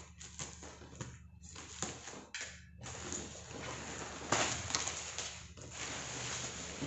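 Packaging being handled as an air fryer is unboxed: a run of short crackles and clicks, then from about three seconds in a continuous rustling, crinkling noise with one louder crackle near the middle.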